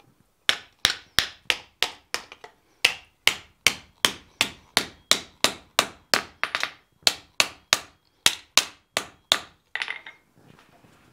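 Steel hand hammer striking red-hot thin sheet steel on the edge of an anvil, about three sharp ringing blows a second, forming a second fold in the sheet; the blows stop near the end.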